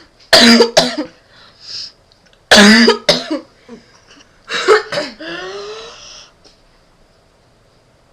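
A person hiccuping, three sharp hiccups about two seconds apart; the last runs into a drawn-out vocal sound.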